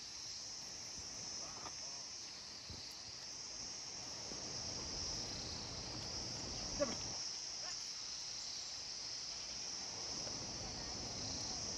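A steady high-pitched chorus of insects, with one short louder sound about seven seconds in.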